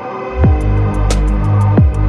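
Background electronic music with a heavy bass line and deep bass hits that drop in pitch, over a steady tick of hi-hats; after a brief quieter lull the full beat comes back in about half a second in.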